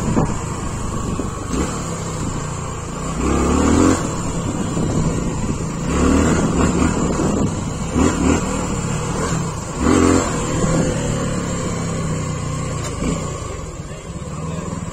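Suzuki V-Strom 250's single-cylinder engine pulling under throttle, with several short surges as the throttle is opened. It eases off near the end as the bike slows.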